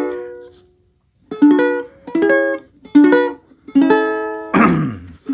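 Ukulele strummed by hand: a chord rings out and fades, then after a short pause four chords are strummed about one every 0.8 seconds. Near the end there is a brief noisy sound that falls sharply in pitch.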